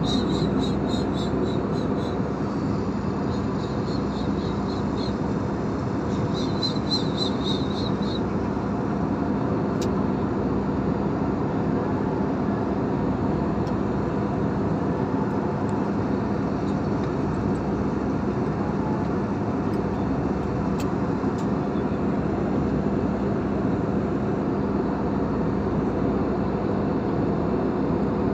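Steady cabin noise of an Airbus A320-family jetliner in flight, heard from a window seat beside the engine: an even rush of jet engine and airflow with a low steady hum. A faint high-pitched pulsing comes and goes in the first eight seconds.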